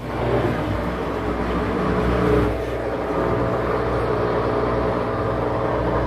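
Midea inverter front-loading washing machine running, its drum motor giving a steady whirring hum as the second wash stage begins after the spin.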